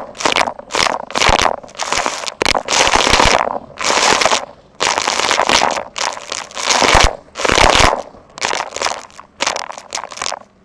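Vacuum cleaner sucking up crunchy debris: irregular crackling, crunching bursts of noise that stop and start every half second or so.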